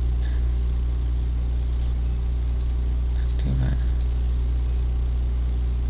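Steady low electrical hum with a constant hiss and a thin high-pitched whine, unchanging throughout; a man says one word about three and a half seconds in.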